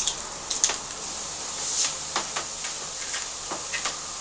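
Metal garlic press working a garlic clove: a scattered run of sharp metallic clicks and snaps as the handles are squeezed and the clove is crushed, over a steady hiss.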